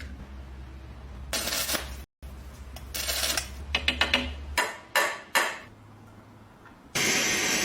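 Metal lock parts handled and scraped, with several short clinks and sharp clicks. Near the end a loud, steady power-tool-like noise starts suddenly.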